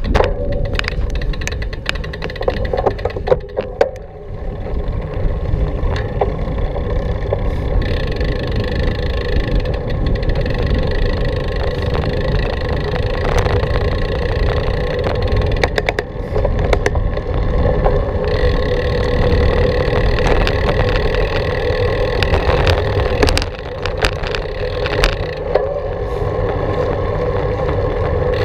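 Bicycle riding along a paved trail: a steady rumble of tyres and wind with a hum and scattered clicks and rattles, briefly quieter about four seconds in.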